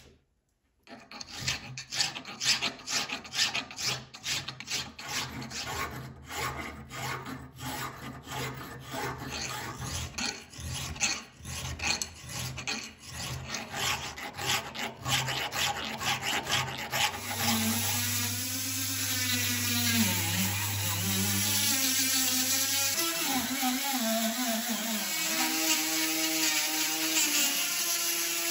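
Hand file scraping in repeated strokes, about two a second, across the eye of a steel hammer head held in a vise; the file barely bites the steel. About two thirds of the way in, a small hand-held rotary tool with a sanding drum starts grinding in the eye, a continuous whine whose pitch wavers.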